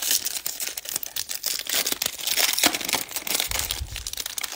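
Foil wrapper of a 2020 Bowman baseball card pack being torn open and crinkled by hand, a continuous crackle of many small snaps.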